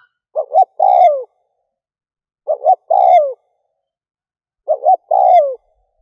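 A spotted dove (chim cu gáy), a decoy bird calling to lure wild doves, coos three times about two seconds apart. Each call is two short notes and then a longer note that falls in pitch at its end.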